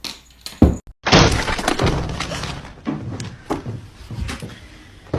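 Two sharp knocks, a brief cut-out, then a loud crash followed by a clatter of separate impacts over the next few seconds.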